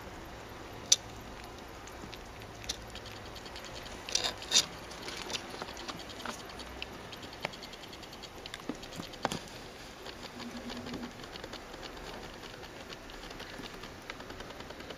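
A litter of young rat pups scurrying over a fabric cushion: a light patter of small claws with scattered faint clicks and scratches. A few sharper clicks come about a second in and again around four seconds in.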